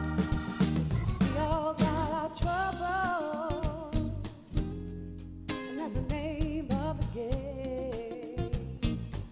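Live soul band playing: a woman's lead vocal sung with vibrato over electric bass, electric guitar, keyboard and drum kit.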